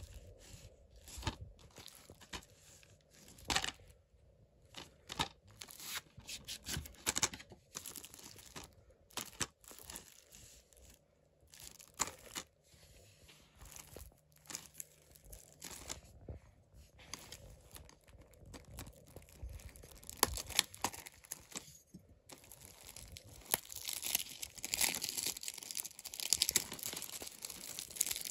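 Plastic shrink wrap on a Blu-ray case being picked at and torn off: scattered crackles and rustles, turning into denser, continuous crinkling for the last few seconds.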